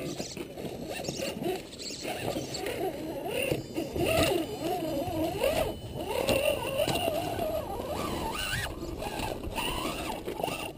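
Electric motor and gear drive of a 1:10 scale RC rock crawler whining, its pitch wavering up and down with the throttle as it climbs, with scattered knocks of the tyres and loose rocks.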